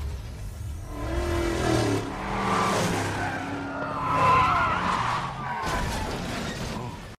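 Cars speeding by with engines revving and tyres squealing and skidding; the sound cuts off suddenly at the end.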